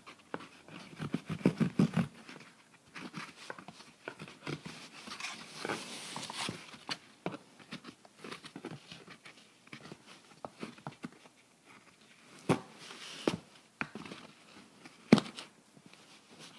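Knife cutting and scraping through an egg carton in short, irregular scratchy strokes, with a few sharp knocks in the last few seconds.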